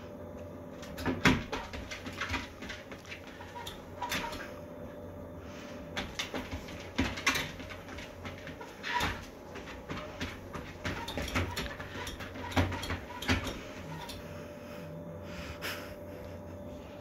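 A Shiba Inu moving about on a treadmill deck and the floor beside it: scattered taps and knocks from its paws, with short breathy snorts, over a faint steady hum.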